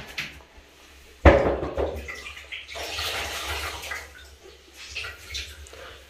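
Water splashing and trickling as a cleaning cloth is wetted. It starts suddenly about a second in, and there are shorter bursts of trickling later.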